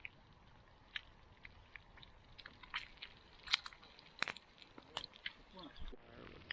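Campfire cooking crackling: sharp, irregular pops and crackles from the wood fire and the frying pan over it, coming more often from about halfway through.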